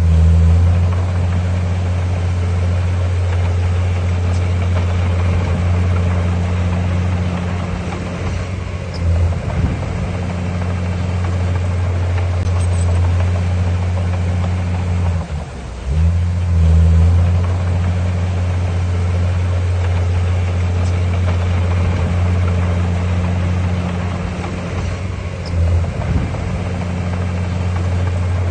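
Heavy construction-machine diesel engine running steadily at a low, even pitch. Its note drops briefly about halfway through and then picks up again, with smaller dips before and after.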